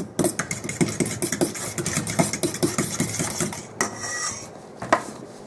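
A metal fork stirring wet banana batter in a mixing bowl, clinking and scraping against the bowl in a quick run of clicks that stops about four seconds in.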